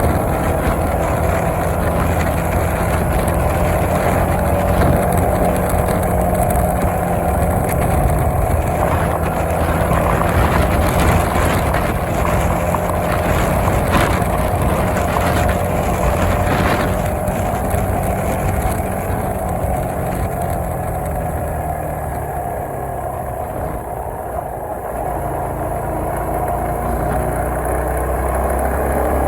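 Suzuki Marauder 125's single-cylinder four-stroke engine running steadily. Around twenty seconds in it settles lower and quieter, then picks up again near the end.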